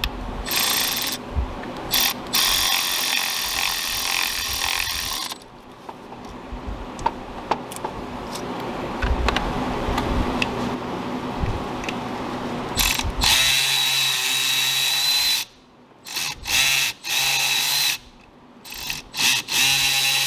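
Milwaukee M12 cordless 1/4-inch ratchet running a bolt in short bursts, its motor whining as it starts and stops several times. A quieter stretch of clicks and handling sits in the middle.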